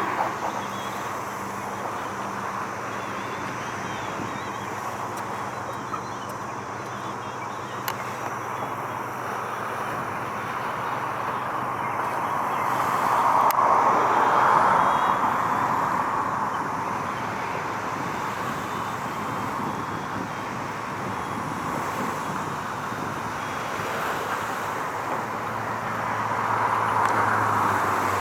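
Road traffic noise: a steady rush of tyres and engines, swelling as vehicles pass about halfway through and again near the end.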